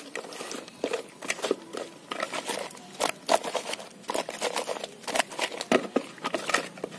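Hands rubbing salt and turmeric into small raw fish in a woven bamboo basket: an irregular run of wet handling sounds and small clicks of fish and fingers against the cane.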